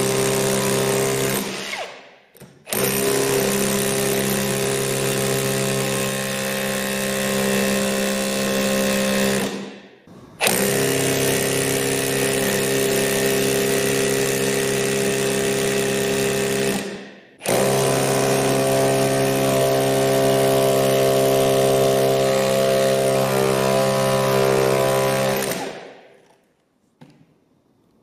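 Milwaukee M18 CHP cordless rotary hammer in chisel mode, breaking a concrete block: a steady, rapid hammering in four runs, with brief gaps where the trigger is let go, stopping a couple of seconds before the end.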